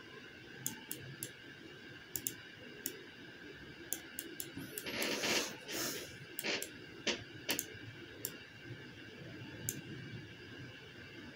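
Computer mouse clicks, a dozen or so at irregular intervals, as control points are selected and dragged. About five seconds in there is a short louder rush of breath-like noise.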